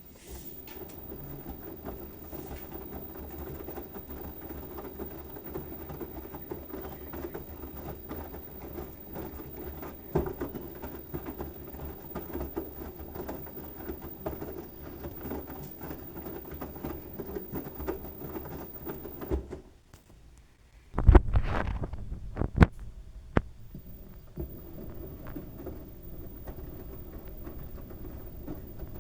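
LG washing machine drum tumbling a load of wet towels, a steady churning rattle with fast patter. About two-thirds of the way through it stops briefly, a few heavy low thumps follow, and the tumbling starts again.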